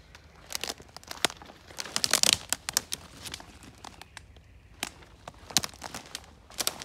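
Dry twigs and dead leaf litter crackling and snapping as someone pushes through forest undergrowth, in irregular snaps with a dense burst about two seconds in.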